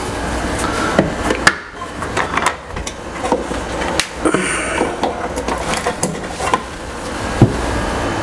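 Scattered knocks, taps and clicks of hands working at a hanging LED light fixture and its cabling and of a person shifting about inside an empty aquarium, over a steady low hum.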